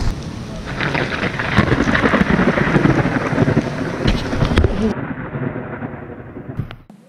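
Heavy rain with rumbling thunder during a thunderstorm. About five seconds in the sound turns muffled, and it fades out near the end.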